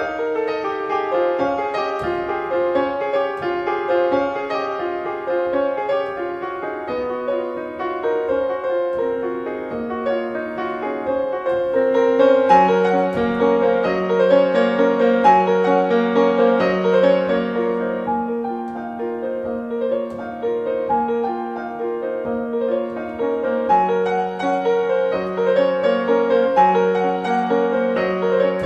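Contemporary classical keyboard music: many overlapping held notes moving over a steady texture, with a low sustained bass note sounding beneath it for several seconds in the middle and again near the end.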